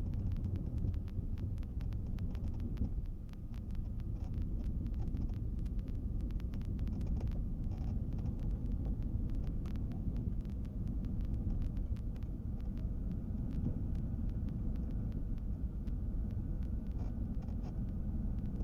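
Steady low rumble of a Cessna 310's twin piston engines heard inside the cabin during the landing rollout, with many small clicks and rattles over it.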